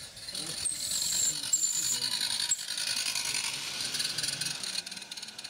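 A 16mm-scale garden railway train running along the track, its wheels and running gear making a continuous rattling, ratchet-like clatter. Two brief high squeaks come about a second in.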